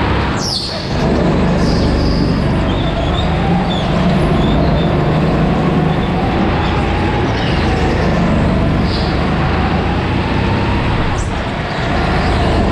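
Go-kart engine running hard, heard onboard with wind noise, its note wavering and dipping briefly near the start and near the end as the throttle lifts. A few short high squeaks cut through.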